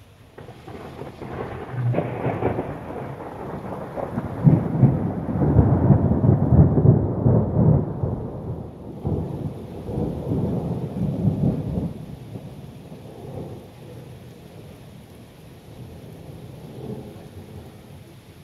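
A long roll of thunder: the rumble builds over the first couple of seconds, is loudest around the middle, and dies away about twelve seconds in. Rain falls steadily underneath.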